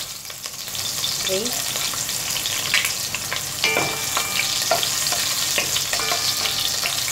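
Garlic cloves sizzling in hot oil in a pot, with a wooden spatula scraping and knocking against the pot as it stirs them from about halfway through.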